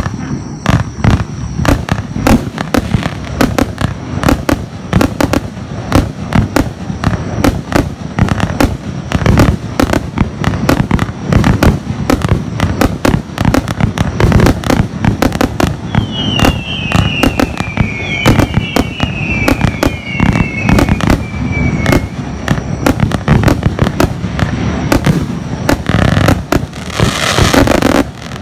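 Pyro Group Europe Italian Power 1 compound fireworks cake firing in rapid succession: a steady stream of shots and bursts, several a second. A few short falling whistles sound a little past halfway, and near the end a dense crackle takes over.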